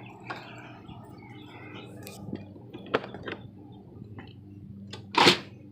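Scattered light knocks and clicks of someone climbing into a camper, with a short, louder rush of noise about five seconds in.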